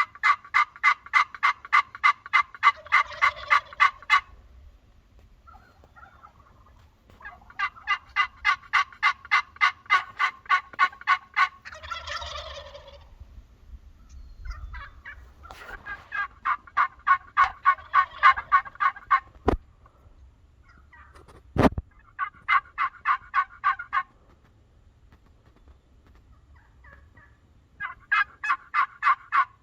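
Rapid runs of turkey yelping, several notes a second, repeated five times with short pauses. A single warbling call comes in between, about twelve seconds in, and two sharp clicks sound a little past the middle.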